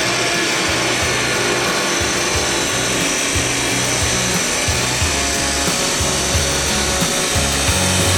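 A power tool running steadily as it cuts steel exhaust pipe for a hand-made header, over background music with an even low beat.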